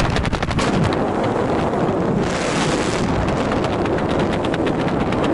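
Wind buffeting a helmet camera's microphone during flight under an open parachute canopy: a loud steady rush broken by rapid fluttering pulses, gusting harder about two seconds in.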